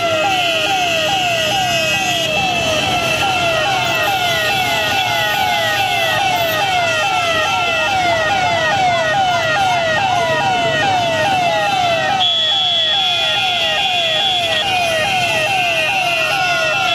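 Electronic siren in fast yelp, sweeping about three times a second without pause, over road and engine noise from the moving traffic. A second steady high tone joins for a few seconds past the middle.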